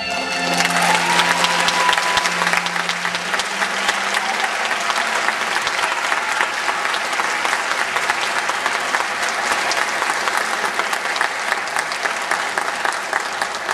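Audience applauding, steady dense clapping throughout. The last held notes of the string music fade out under it in the first few seconds.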